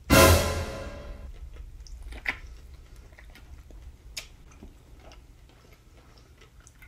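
A loud, sudden hit with a ringing pitched tone that fades over about a second, laid over an exaggerated close-up. Then quiet mouth noises as a burger is chewed, with a few small sharp clicks.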